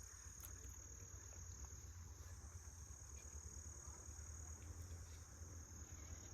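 Faint, steady high-pitched insect trill, unbroken throughout, over a low rumble.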